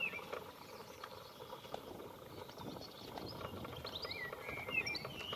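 Small birds chirping in short rising and falling notes, a few at the start and more of them in the second half, over a steady background hiss.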